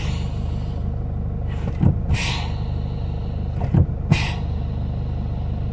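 Toyota Hilux engine idling steadily, heard from inside the cabin, with two short hisses of air about two seconds in and again near four seconds. The hiss is the air leak of the failing brake booster (hidro-vácuo), which also leaves the brake pedal hard.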